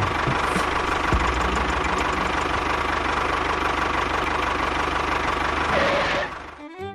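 An engine running steadily with a rapid rattling chug, cutting off about six and a half seconds in.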